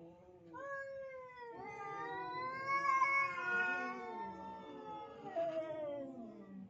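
Tomcats caterwauling at each other: long, drawn-out yowls that rise and fall in pitch, two voices overlapping. This is a rivalry standoff between males over the only female.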